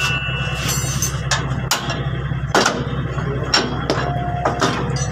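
Steel bars and tools clanking and knocking against the truck's brake-shoe and hub assembly: about eight sharp, irregular strikes, a few ringing briefly, over a steady low hum.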